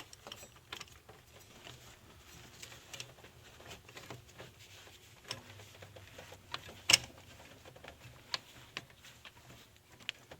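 Scattered small metallic clicks and taps of hand tools and parts being handled while a solenoid valve is fitted into the engine, with one sharper click about seven seconds in.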